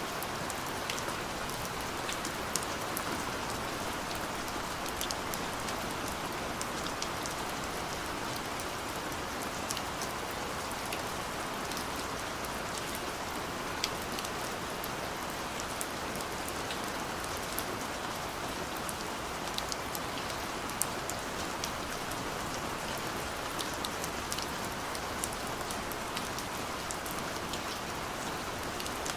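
Steady rain falling, with individual drops ticking sharply on a surface throughout.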